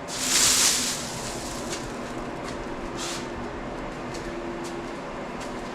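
A short hiss near the start and a briefer one about three seconds in, over a steady low hum.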